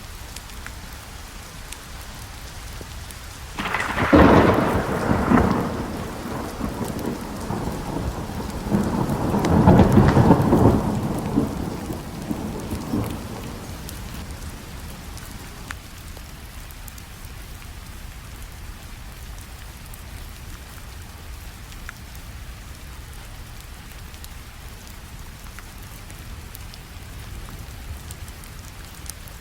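Steady rain with a thunderclap breaking in suddenly a few seconds in. It rolls into a second, louder rumble about ten seconds in, then fades back to the rain alone.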